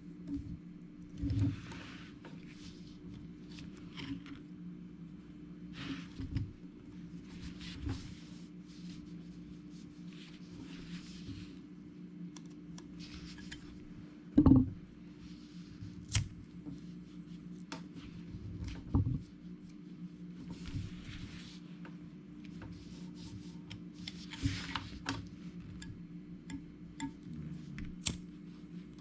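Small clicks, taps and brief rustles of plastic parts and tools being handled on a workbench, over a steady low hum, with one louder knock about halfway through.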